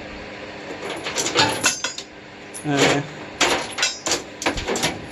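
Loose metal tools and small hardware clinking and clattering as they are rummaged and set down, in a string of irregular knocks.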